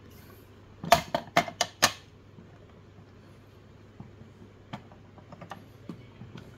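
Carbon crank arms and their spindle set down on a glass kitchen scale: a quick run of about five hard clacks within a second, then a few faint clicks as they are adjusted on the scale.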